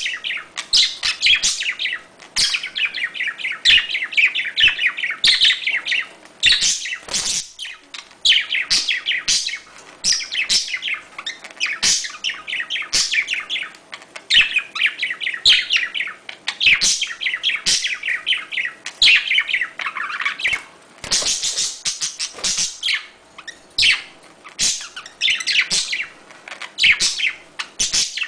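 Budgerigars chattering and warbling during mating: fast, scratchy chirps packed together in long runs, broken every few seconds by a brief pause.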